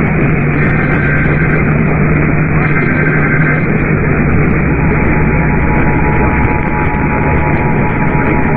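Emergency Alert System header over a noisy radio channel with heavy static and a low hum. Two of the three short data-burst chirps of the SAME header come first, then, about five seconds in, the steady two-tone attention signal starts and holds.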